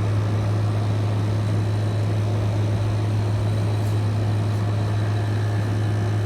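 A 2014 Arctic King 5000 BTU window air conditioner running on medium cool. Its GMCC rotary compressor gives a steady low hum under the even rush of the fan.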